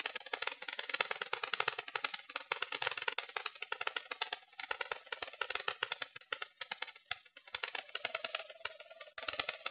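Dense, rapid crackling and rattling picked up by a keychain camera's microphone riding on an electric RC glider in flight, with a few brief dropouts.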